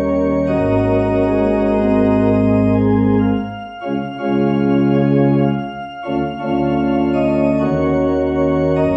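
Organ playing slow, sustained chords, with short breaks between phrases about four and six seconds in: an organ prelude to the worship service.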